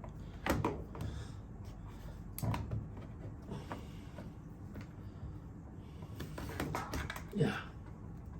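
Sharp clicks and knocks of pliers and hands working loose tight plastic parts on a washing machine's control board housing: one about half a second in, another about two and a half seconds in, and a cluster near the end.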